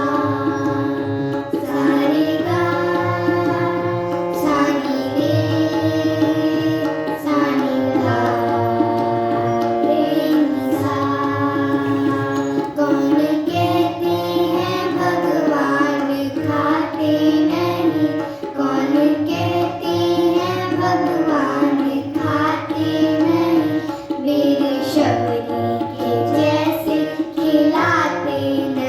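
Indian devotional song with tabla, singing voices and a melody of held notes that step from pitch to pitch.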